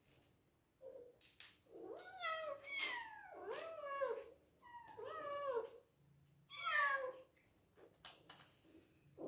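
Bengal kittens meowing, about six high calls that rise and fall in pitch, some overlapping, then a few faint clicks near the end. Hungry kittens calling for food.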